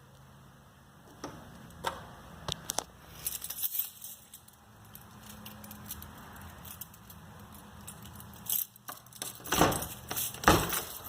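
Handling noise: scattered light clicks and a spell of small metallic jingling, then several louder knocks and thuds near the end.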